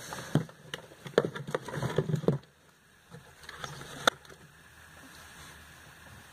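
Cardboard perfume boxes being handled and set down on a shelf: a run of light knocks and rustles for the first two seconds or so, then a single sharp tap about four seconds in.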